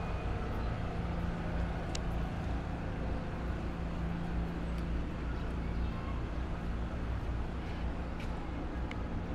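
City street traffic: vehicles running with a steady low rumble and hum, and a single sharp click about two seconds in.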